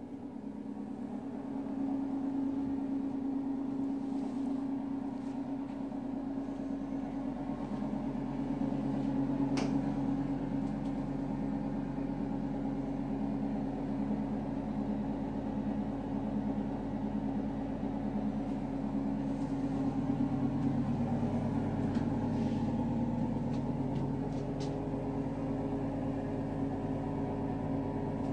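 An engine running steadily, a low hum that grows louder over the first couple of seconds and then holds, with a few faint clicks over it.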